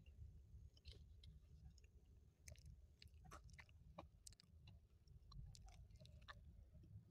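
Quiet close-miked chewing: soft, scattered mouth clicks and smacks as a person chews food, over a faint low background hum.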